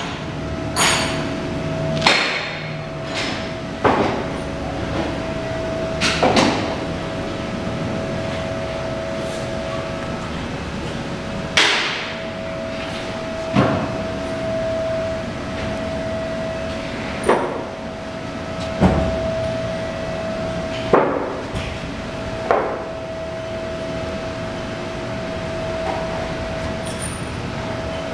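Workshop background: about ten sharp knocks and clanks at irregular intervals, a few seconds apart, over a steady hum.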